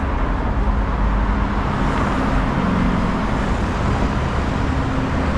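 Road traffic passing close by: a steady rush of tyres and engines with a deep rumble, and a low engine hum that swells about two seconds in and again near the end.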